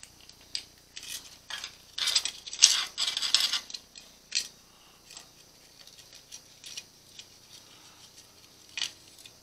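Light clicks, taps and rattles of a small-engine carburetor, off a Briggs & Stratton 140cc engine, being handled and turned over in the hands. The clicks are busiest in the first half, with a few scattered ones after.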